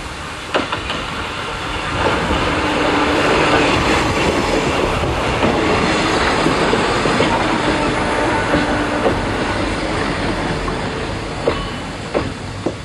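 Eizan Electric Railway two-car electric train passing close by: the running noise of wheels on rail swells for a few seconds and then fades. Sharp clacks of the wheels come about half a second in and three times near the end as the train goes away.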